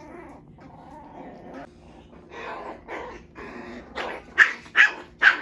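Malshi (Maltese–Shih Tzu mix) puppies play-fighting: low puppy growls at first, then four short, high, sharp yaps in quick succession near the end, the loudest sounds.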